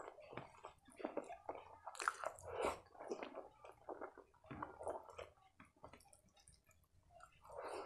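Close-miked hand-eating sounds: fingers pressing and mixing rice with curry on a plate, and chewing, in a run of short irregular sounds, loudest about two seconds in.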